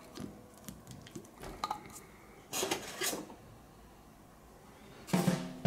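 Small clicks and rustles of a soft plastic bottle being squeezed to pour slime into a plastic cup, then two short plastic scrapes about two and a half and three seconds in as the cup is handled. Music comes in near the end.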